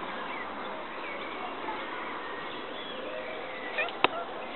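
Small birds chirping faintly over a steady outdoor background hiss, with a single sharp click about four seconds in.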